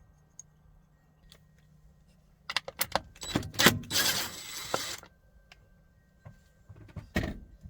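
Small metal parts of a Hoppe multi-point lock's gearbox clicking and rattling as it is taken apart by hand. A quick run of sharp clicks comes a couple of seconds in, then about two seconds of dense clatter, and a single click near the end.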